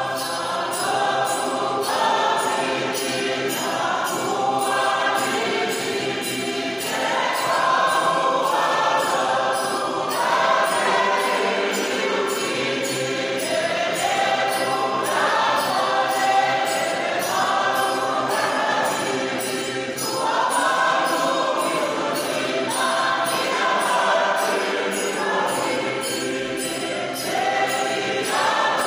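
Church congregation singing a Fijian polotu hymn together in harmony, many voices in held phrases a couple of seconds long.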